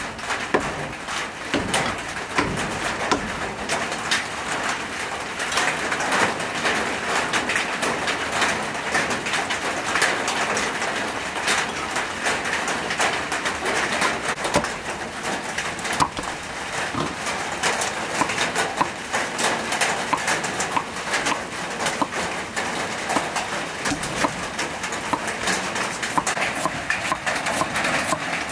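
Birds calling over a steady outdoor hiss, with occasional sharp knocks of a cleaver striking a wooden chopping block.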